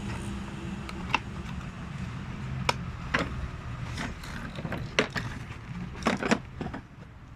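Scattered sharp clicks and taps of plastic toy car parts being handled and fitted together, about seven in all, over a low steady hum.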